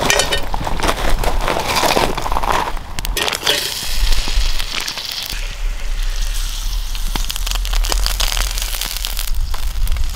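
Firewood crackling and popping in a campfire grill. A few seconds in, beef intestines go into a skillet over the flames and start to sizzle under the crackle.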